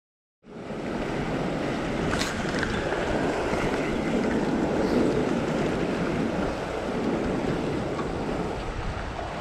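Half a second of silence, then a steady rush of ocean wash surging against a rock ledge, with wind on the microphone.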